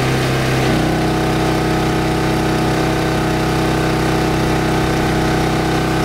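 Westinghouse WGen3600DF open-frame generator running steadily on gasoline. Under a second in, its engine note changes as the electric water heater's load of about 12 amps comes on, and it takes the load with virtually no surge.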